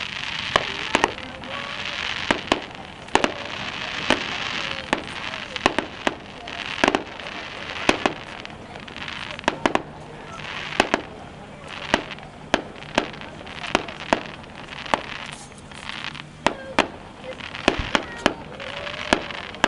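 Fireworks display: aerial shells bursting in sharp bangs, about one or two a second at uneven intervals.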